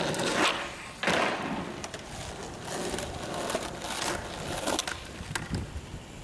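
Skateboard wheels rolling over rough asphalt, with a sharp clack from a board about a second in.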